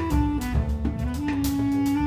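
Instrumental background music: a melody line moving in slow held notes over a bass line and a steady beat.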